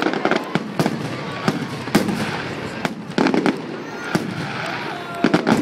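Fireworks salute going off: repeated sharp cracks and bangs, some in quick clusters, over a continuous rumble of bursts.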